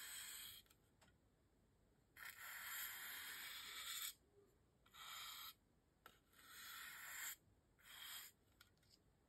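A paintbrush brushed dry across a styrofoam star, the bristles giving a soft, scratchy swish on the foam. The strokes come separately with short pauses: one trails off just after the start, then a long stroke of about two seconds, then three shorter ones of under a second each.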